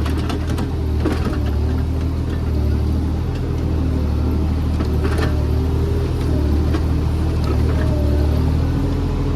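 JCB JS30 Plus mini excavator's diesel engine running steadily under working load, with a wavering whine above the engine drone. A few sharp knocks come through, around the start and about five seconds in.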